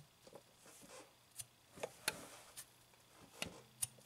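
Gloved hands working around a transmission's clutch slave cylinder and bell housing: faint rubbing with a few light clicks and taps of small parts.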